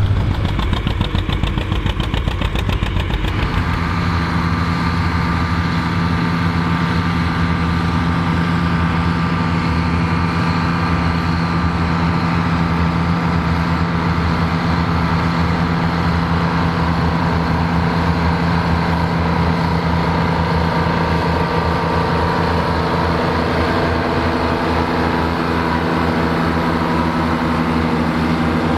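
Tandem tractor's engines running, at first with a fast rough pulsing beat, then from about three seconds in settling into a steady, even drone of unchanging pitch.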